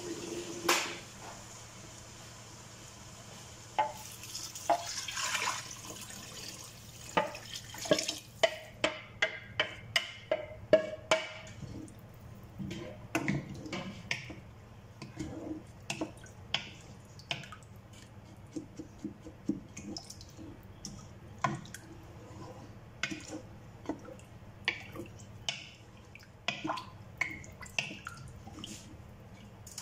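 Wooden spatula stirring rice and vermicelli in a pot of water, knocking and scraping against the pot. A quick run of clicks comes about a third of the way in, then scattered knocks, over a light sound of water.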